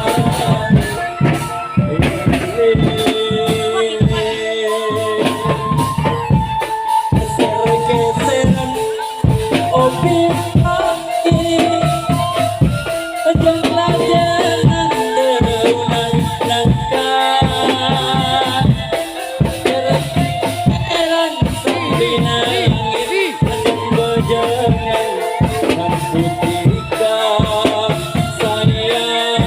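Lively music with a held, wavering melody line over steady drumming and rattling shaker percussion.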